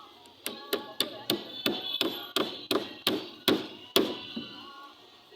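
A hammer striking, about eleven quick blows at roughly three a second, each with a short ring, stopping about four seconds in, as when nailing parapet framing.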